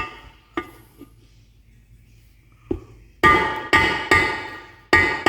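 Rubber mallet tapping a metal socket that drives a crankshaft oil seal into a Kawasaki FR541V crankcase: three light taps, then a run of harder, ringing strikes from about three seconds in. The tinging ring is the sign that the seal has bottomed out in its bore.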